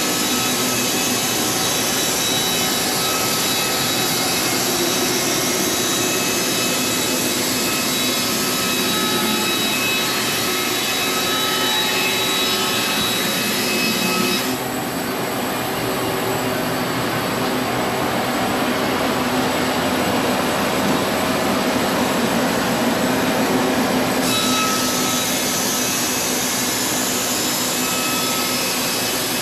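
Sawmill running and sawing through an antique heart pine beam: a steady, loud machine noise with several held tones. The high end dulls for about ten seconds midway, then returns.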